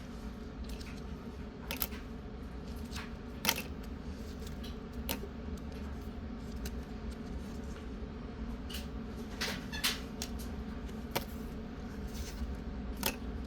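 Pokémon trading cards being handled and flipped through, giving a dozen or so short sharp clicks and snaps at irregular intervals over a steady low hum.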